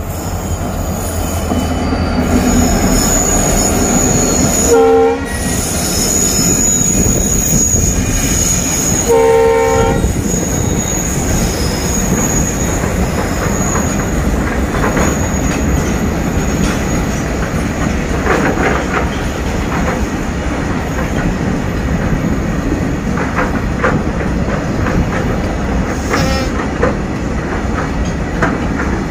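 A pair of diesel locomotives hauling a loaded coal freight train past. The engines rumble at first, and the air horn sounds twice, about five and nine seconds in, the second blast longer. Then the wagons' wheels rumble and clatter steadily over the rails, with a thin high wheel squeal through the first half.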